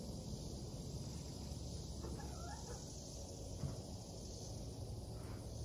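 Quiet ambience with a steady high insect chirring, a faint brief chirp about two seconds in, and a single soft knock a little later.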